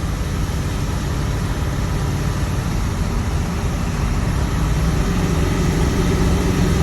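Ford 7.3 Powerstroke turbodiesel V8 running steadily as the truck drives, with a low engine note that grows a little louder about five seconds in. The engine is running smoothly on freshly shimmed injectors.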